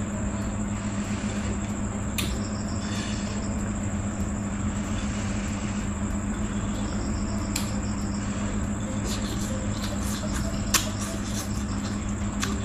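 Noodles being chewed and slurped with scattered sharp wet mouth clicks, the sharpest near the end, over a steady low hum and a continuous high cricket trill.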